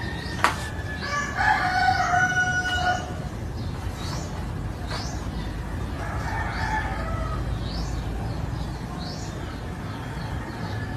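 Two long held animal calls. The first is loud, from about one to three seconds in, and a fainter one comes around the middle. Short high chirps recur about once a second, and there is one sharp click near the start.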